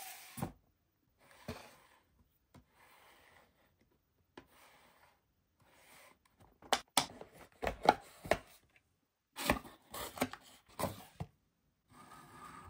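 Cardboard box and plastic toy figure being handled during unboxing: soft rubbing and rustling, then a run of sharp clicks and knocks in the middle as the toy is taken out of its packaging and set on the table.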